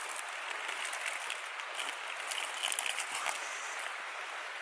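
Small creek water running steadily, with a few light splashes about two to three seconds in.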